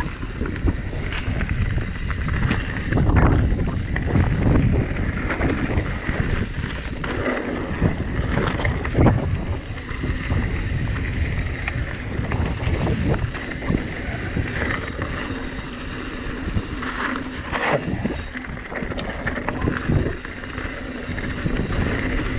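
Mountain bike riding down a dirt singletrack: tyres rolling over the dirt with occasional knocks and clatters from bumps, under steady wind rush on the microphone.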